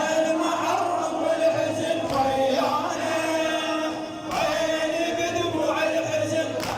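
A male radood chanting a Shia Husseini elegy, singing long held, wavering lines in phrases with a short break between them.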